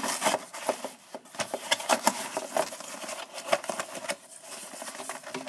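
Cardboard box and plastic packaging tray of a toy blaster being pulled open and handled: irregular crinkling, rustling and sharp clicks.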